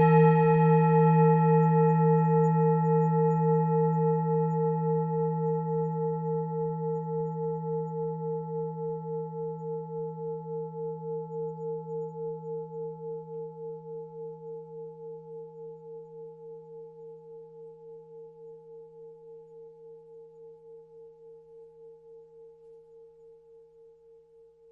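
Tibetan singing bowl ringing on after a strike, its tone pulsing in a steady wobble about two to three times a second. It fades slowly to almost nothing near the end.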